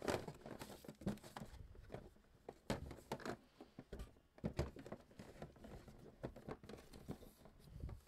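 Paper being handled: soft rustling of a folded regulatory-notices sheet and packaging, with scattered light taps and clicks.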